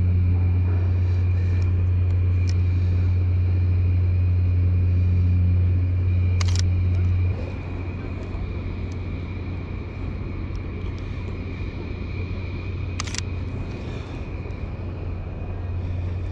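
Two camera shutter clicks from a Sony Alpha 7 II, about six and a half and thirteen seconds in, over a steady low mechanical hum that drops to a duller rumble about seven seconds in.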